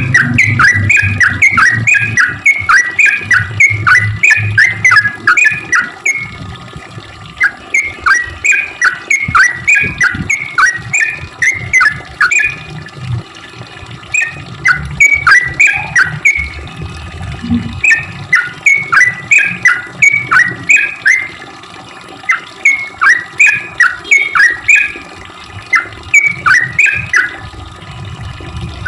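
Yellow-vented bulbul singing in quick runs of short, sharply bending notes, phrases several seconds long broken by pauses of about a second.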